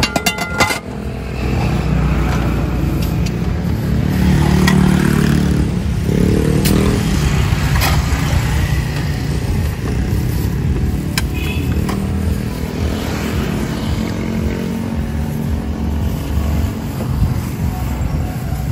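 Street traffic: motor vehicle engines, motorcycles among them, running and passing close by, with one engine rising in pitch about six seconds in. A few light clinks of serving utensils against the bowls and pots come through.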